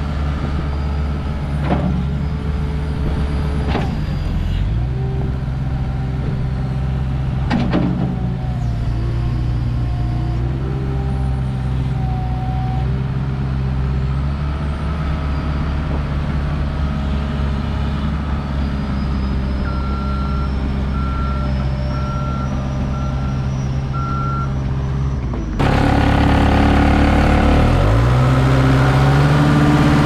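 Case SR150 skid steer loader's diesel engine running steadily under load as the loader arms and bucket work, with a few sharp clanks in the first several seconds. About two-thirds through, a reversing alarm beeps evenly for a few seconds. Near the end the engine is heard close up and louder, revving up and back down.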